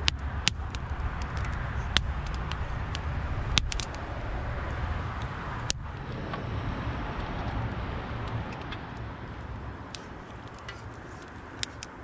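Wood bonfire in a metal fire bowl crackling, with sharp pops of burning wood over a steady low rumble; several loud pops come in the first six seconds, then the fire settles a little quieter with sparser crackles.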